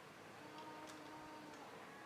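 Near silence: faint held tones in the background and a soft click about a second in.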